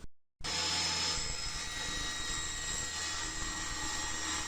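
Hyundai HYTS1800E table saw's motor starting suddenly about half a second in and running steadily at speed with a steady whine, the blade cutting a piece of plywood.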